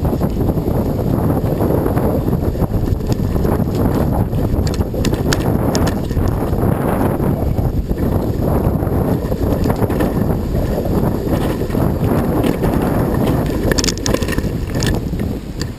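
Heavy wind buffeting on the microphone of a camera carried on a bicycle ride over rough ground, with scattered clicks and rattles from the bike. It cuts off suddenly at the end.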